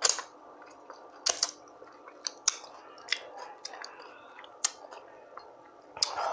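Close-miked chewing: wet mouth smacks and sharp clicks roughly every second, with a louder, fuller chew near the end.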